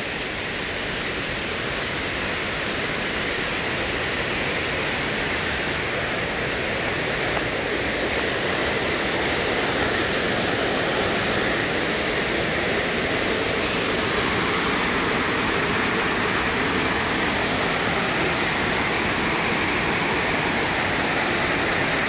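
Small creek waterfall and rapids rushing, a steady roar of water running high and fast after a day of rain. The rush grows a little louder over the first half, then holds steady.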